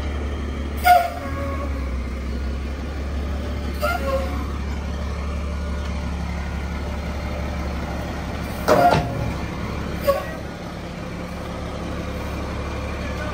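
Roll-off truck's engine idling with a steady low hum. Four short, sharp knocks break in about 1, 4, 9 and 10 seconds in; the one near 9 seconds is the loudest.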